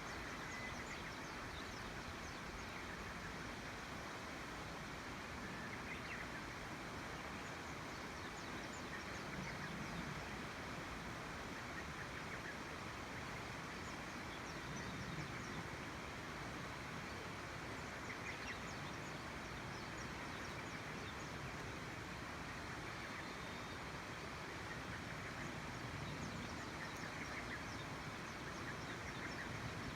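Tenryū River's water rushing in a steady, even flow, with a few faint short chirps here and there.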